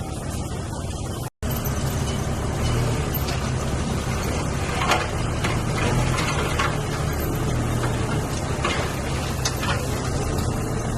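Heavy diesel engine of earthmoving machinery running steadily under load, with scattered clanks and knocks of stone and metal from about four seconds in. The sound cuts out completely for a moment just over a second in.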